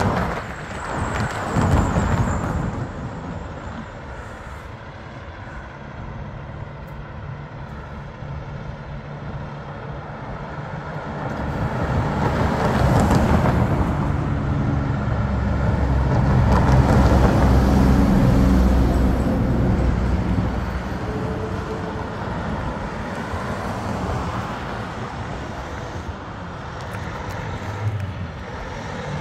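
Diesel semi-trucks coming downhill past the roadside with the engine brake on. The low engine-brake rumble swells to its loudest just past the middle as a truck goes by, then eases. A car passes about two seconds in.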